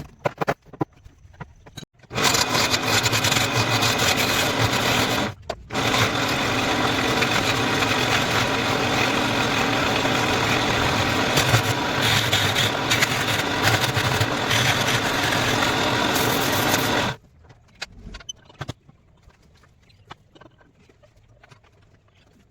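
An electric power tool's motor running under load, starting about two seconds in, dropping out briefly, then cutting off suddenly near the end; faint clicks follow.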